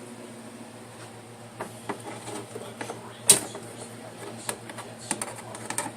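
Kitchen handling: scattered sharp clicks and knocks, the loudest about three seconds in, over a steady low hum.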